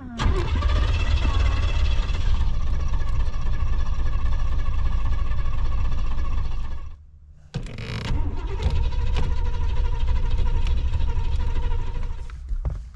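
Chevrolet Monte Carlo's starter cranking the engine, which does not catch: a long crank of about seven seconds, a short pause, then a second crank of about five seconds.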